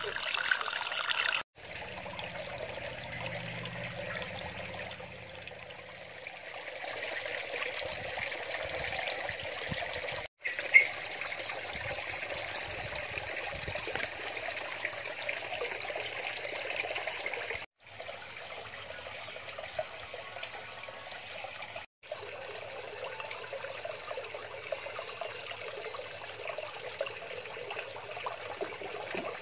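Water trickling and splashing steadily in a garden koi pond, with one short sharp sound about eleven seconds in. The sound drops out completely for a moment four times.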